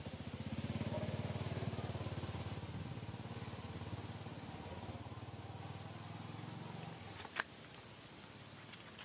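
A small engine running, louder in the first two seconds and then fading away by about seven seconds in. A single sharp click comes shortly after.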